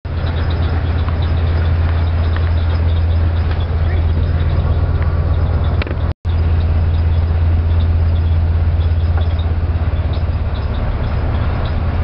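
Steady low drone of a car ferry under way, its engines humming beneath a constant rushing noise, cut off for a moment about six seconds in.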